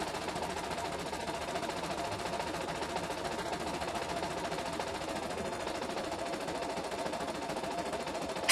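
CNY E960 computerised embroidery machine stitching steadily, its needle working fast while the embroidery unit shifts the hoop. A single sharp click comes near the end.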